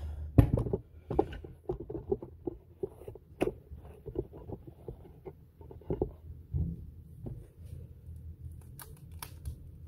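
Tape-wrapped pieces of a snapped stainless steel bolt being handled and set down on a wooden workbench: a run of knocks and taps, the loudest about half a second in, thinning out after about seven seconds.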